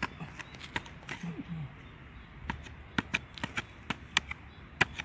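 A small hand digging tool jabbing and scraping into dry soil: a string of short, sharp knocks at an irregular pace.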